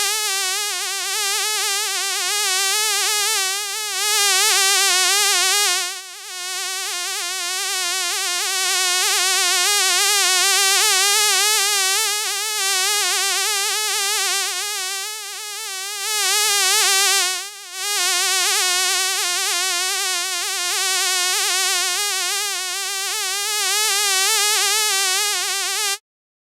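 A fly buzzing in flight: one continuous high-pitched wing buzz whose pitch wavers constantly, fading briefly twice and cutting off suddenly near the end.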